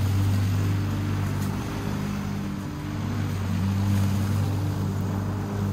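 Walk-behind lawn mower engine running steadily under cutting load. Its pitch and level dip briefly about halfway, then pick back up.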